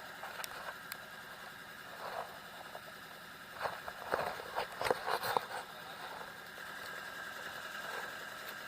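Fishing boat's engine running with a steady drone, and a short burst of knocks and clatter in the middle.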